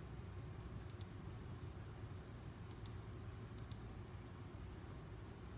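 Computer mouse button clicking about four times, most clicks a quick double tick of press and release, as the DVR's playback controls are worked. A faint steady low hum lies under them.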